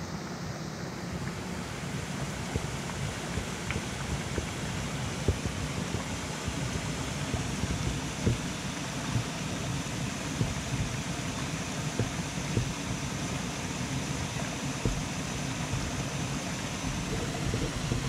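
Steady rushing of a shallow rocky stream and the water pouring over a small weir, with uneven low buffeting of wind on the microphone.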